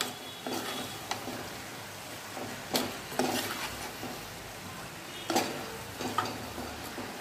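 Steel spatula scraping against an earthenware pot as raw chicken pieces are stirred and sautéed in green masala. There are about seven irregular strokes over a faint steady sizzle.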